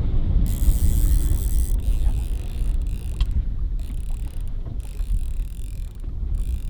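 Wind rumbling on the microphone, with stretches of high hiss that start and stop abruptly several times.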